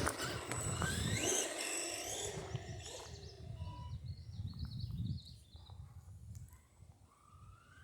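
Arrma Big Rock electric RC monster truck running on a road: its motor whine rises and then fades away over the first few seconds. Birds chirp faintly in the lull, and the motor whine starts rising again near the end.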